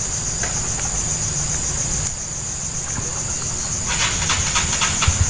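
Insect chorus: a steady, high-pitched trill with fast even pulsing. About four seconds in there is a short run of rapid clicks.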